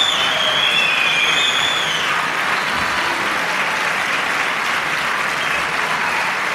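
Concert-hall audience applauding steadily after an orchestral performance, with a few high-pitched calls over the clapping in the first two seconds.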